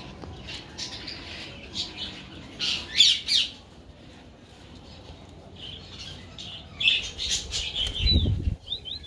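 Tame green parakeets flapping their wings in short rustling bursts as they fly to and land on a man's hands, with a few short, high chirps. A low thump comes near the end.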